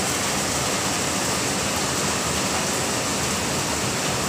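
Steady monsoon rain, heard as an even, unbroken hiss.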